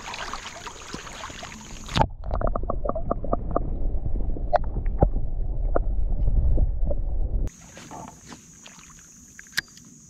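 Creek water heard through a camera dipped underwater as a fish is released by hand. About two seconds in there is a sharp splash, then a muffled low rumble of moving water with many clicks and knocks for about five seconds. It cuts off abruptly when the camera comes back out of the water, leaving quieter open-air water sounds with a few light ticks.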